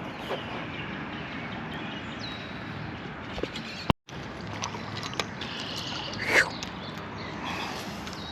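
Open-air lakeside ambience: a steady background hiss with faint bird chirps and a few soft knocks, broken by an abrupt cut just under four seconds in.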